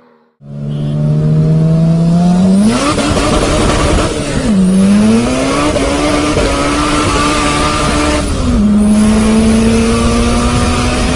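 Car engine under load, its note climbing, dipping briefly about four and a half seconds in, holding high, then dropping again about eight and a half seconds in. The dips sound like gear changes. It starts after a short silent cut at the very beginning.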